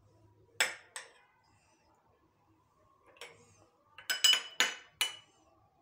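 Metal spoon clinking against glass serving bowls and a glass plate while chutney is spooned out: a couple of light taps in the first second, one near the middle, then a quick run of four or five louder, briefly ringing clinks about four seconds in.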